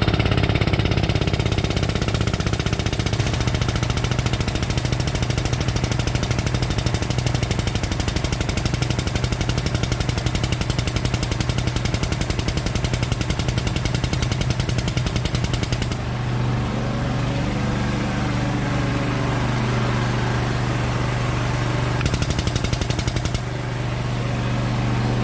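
An engine running steadily, with a fast mechanical rattling pulse over it that stops abruptly about 16 seconds in and comes back briefly near the end.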